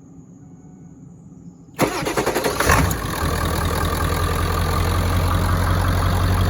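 2002 Ford F-250's 7.3L Powerstroke turbo diesel V8 cranked by the starter about two seconds in, catching within about a second and settling into a steady idle through its 4.5-inch turbo-back MBRP exhaust.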